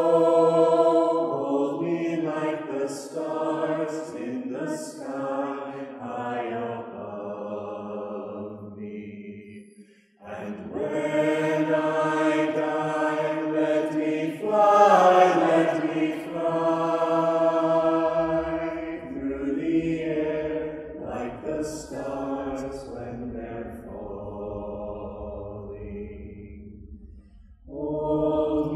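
Mixed choir of men's and women's voices singing long held chords. Each phrase fades away, with a brief break about ten seconds in and another near the end before the next phrase comes in.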